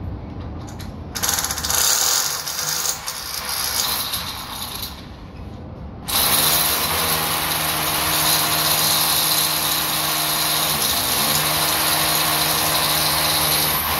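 Hand-held power drill working overhead into window framing. It runs in rough, uneven spurts for the first few seconds, then from about six seconds in it runs steadily with a strong motor whine. The pitch sags briefly near eleven seconds as the drill takes load.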